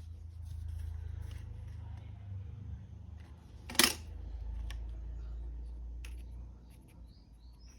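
Handling noise from a smartphone being handled, with a low rumble on the microphone, a few faint clicks and one sharp plastic-sounding click just before four seconds in.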